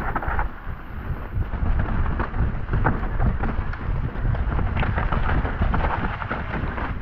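Mountain bike riding down a dirt singletrack, heard from a camera mounted on the rider: a steady low rumble of tyres and trail chatter, with frequent small clicks and rattles from the bike over the rough ground.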